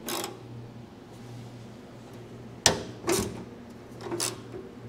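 Metal hand tools working the chrome nuts on car trim. A sharp metallic click comes a little past halfway, and two short clattering scrapes follow about half a second and a second and a half later, over a steady low hum.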